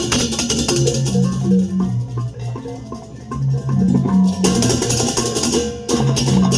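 Balinese balaganjur gamelan playing: held bronze gong-chime notes over a dense, fast clash of cymbals. It eases off about two seconds in and builds back up loud from about four and a half seconds.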